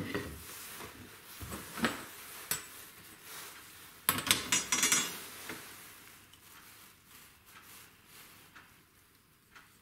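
Plywood blanks and a steel ruler knocked and set down on a wooden workbench, with a clatter of metal tools about four seconds in as a metal drawing compass is handled; after that only faint clicks.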